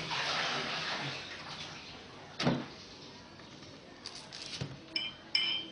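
Kitchen knife peeling the skin off bananas: a scraping rustle in the first second, a sharp knock about two and a half seconds in and a softer one later, then two short high squeaks near the end.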